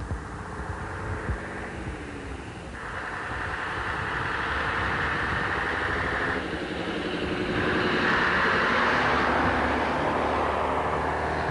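AEC Regent III RT double-decker bus with its diesel engine running as it approaches and drives past. The sound grows louder from about three seconds in and is loudest in the last few seconds as the bus passes close.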